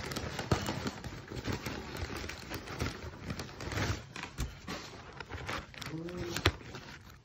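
Paper takeout bag and cardboard food box rustling and crinkling as takeout food is unpacked, with irregular crackles and light clicks throughout and one sharp click about six and a half seconds in.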